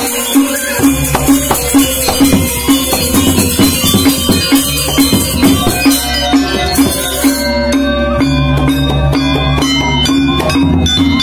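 Balinese gamelan gong ensemble playing: bronze metallophones ring out in fast, dense strokes over hand-played kendang drums. About two-thirds of the way through the high shimmer thins and the ringing bronze notes stand out more clearly.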